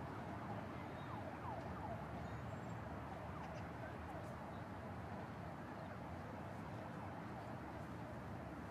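Steady outdoor city ambience: an even, low rumble of distant traffic, with faint short whistling glides scattered through the first half.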